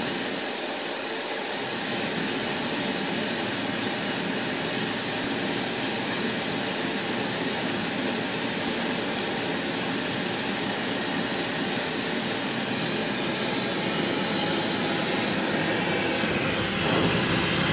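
Dyson Supersonic hair dryer running steadily, its nozzle set in the mouth of a wet leather boot and blowing a constant rush of air. Near the end it is handled and moved, and the sound of the air shifts.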